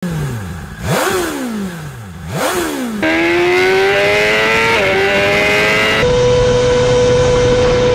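BMW S1000RR four-cylinder engine: two sharp throttle blips at standstill through an aftermarket exhaust, each rising fast and falling back. Then, riding, the revs climb steadily under hard acceleration with one upshift. Near the end a steady high-rev run near top speed, about 360 km/h.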